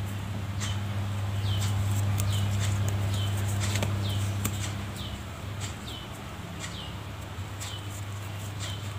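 A bird chirping: short high chirps, each falling quickly in pitch, repeating irregularly about once or twice a second over a steady low hum.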